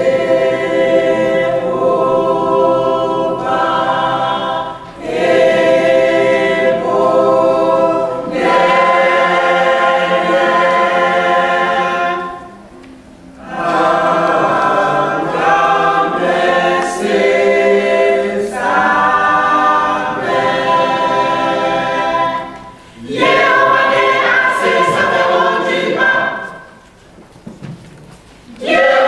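Mixed choir of women and men singing a gospel song under a conductor, in phrases with brief pauses between them and a longer pause near the end.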